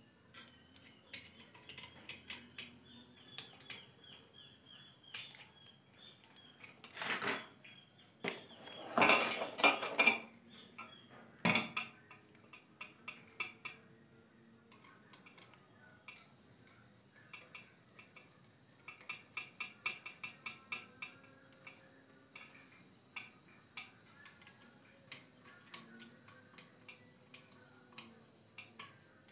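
Metallic clinks and clicks of hard objects being handled, with a louder clatter about nine to ten seconds in and a single sharp knock shortly after. A faint steady high tone runs underneath.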